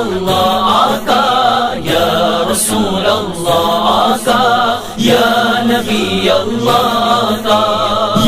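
Devotional naat chanting: voices singing long, wavering held notes over a steady low hum, with brief breaks between phrases.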